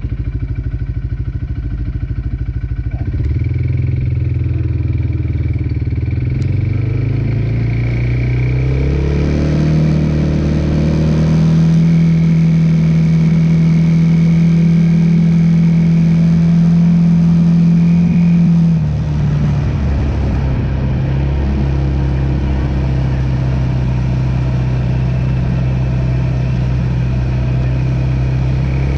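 2008 Arctic Cat 250 ATV engine running hard at speed. Its pitch climbs in steps over the first ten seconds as it accelerates, holds high and steady, then drops suddenly a little past halfway and runs on steady at a lower pitch. Wind rushes over the microphone throughout.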